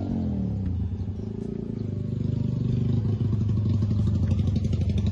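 Motorcycle engine running close by. Its pitch drops in the first second, then it runs steadily and grows louder from about two seconds in.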